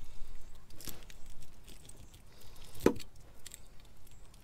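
Fillet knife working a fish on a plastic fish-cleaning table: light clicks and taps of the blade and the fish against the board, with one sharp knock about three seconds in.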